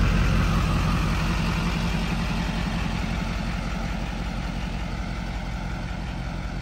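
1955 GMC DW950 semi truck's engine idling steadily with a low, even rumble, growing gradually fainter.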